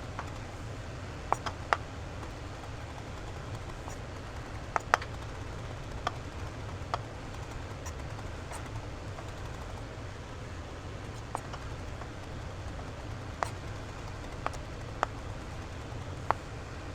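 Light clicks and knocks of kitchen utensils being handled, about a dozen spaced irregularly rather than in a chopping rhythm, over a steady low hum.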